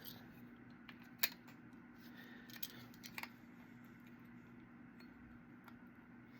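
A few light clicks and ticks of small case parts and screws being handled, the sharpest about a second in, over a faint steady hum.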